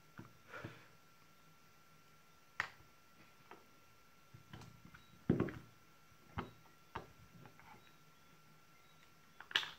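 Scattered clicks and knocks of a desoldering gun's plastic housing being handled and pried open, its case halves coming apart; the loudest knock comes about five seconds in and another cluster near the end.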